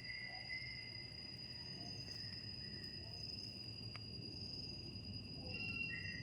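Several insects trilling at once, steady high-pitched tones overlapping, some dropping out and coming back. A single faint click about four seconds in.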